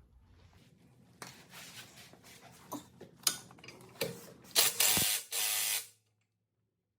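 Tools working on a rear shock mounting bolt: scattered metallic clicks and knocks, then two loud rasping bursts of a ratchet or wrench that cut off suddenly about six seconds in.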